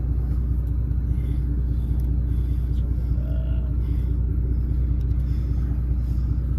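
Boat engine running steadily at low revs, a constant low rumble with a steady hum.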